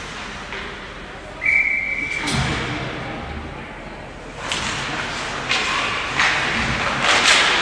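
A referee's whistle blows one steady blast of about a second, about a second and a half in. A heavy thud follows right after it, then scattered knocks and clatter.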